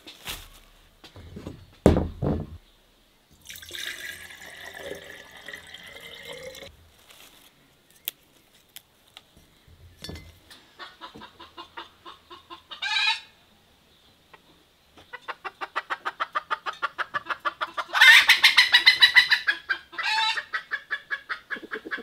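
Chickens clucking and cackling in quick runs of repeated notes that grow loudest near the end. A single loud thump about two seconds in.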